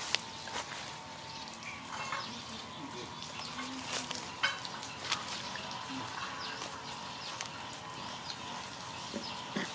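Outdoor garden ambience with a few faint short animal calls and scattered small clicks.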